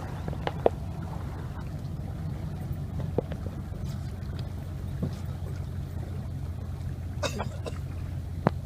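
Motorboat engine running at a steady drone as the boat moves along, with a few light knocks.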